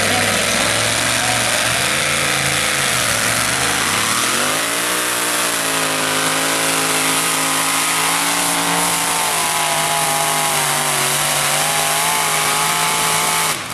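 Two-wheel-drive pickup truck's engine at full throttle, loud and steady, pulling a weight-transfer sled. Its pitch climbs about four seconds in and holds high, then the sound drops away suddenly near the end.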